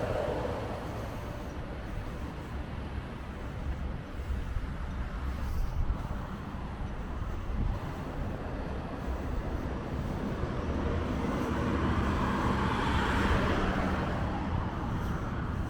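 Steady low rumble of road traffic in an outdoor city soundscape, swelling a little louder about twelve to fourteen seconds in.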